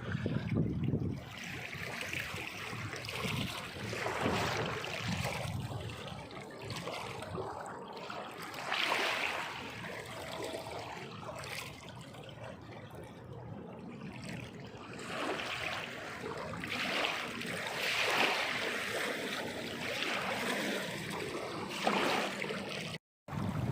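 Water splashing in irregular surges that swell and fade every second or few, with a brief silent gap near the end.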